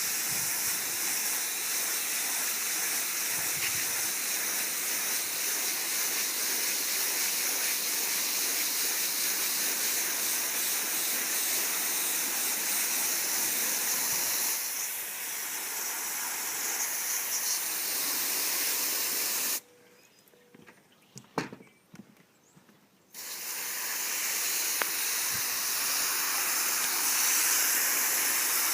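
Garden hose spraying water onto a window air conditioner's coils, a steady hiss that stops for about three seconds roughly two-thirds through, with a few small knocks in the pause, and then starts again.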